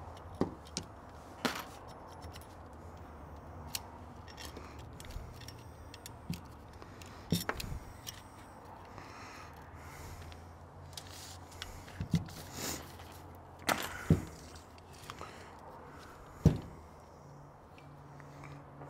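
Small metal carburetor parts and hand tools clicking and clinking as a Rochester Quadrajet four-barrel carburetor is disassembled: a dozen or so scattered light clicks and taps, with a sharper knock near the end. A steady low hum runs underneath.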